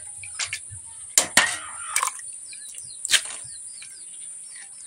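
Cauliflower being washed by hand in a vessel of water: several sharp knocks and a short splashing rush about a second and a half in. Under it runs a steady high chirring of insects, with small bird chirps.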